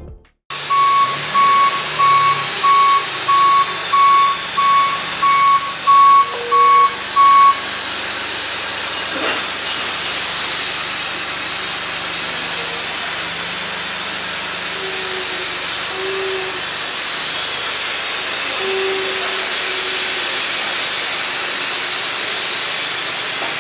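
Bridgeport Torq-Cut TC4G CNC mill powered up: an electronic beep repeating about one and a half times a second, around ten times, over a steady loud hiss. After the beeping stops the hiss carries on alone, with a few faint short tones.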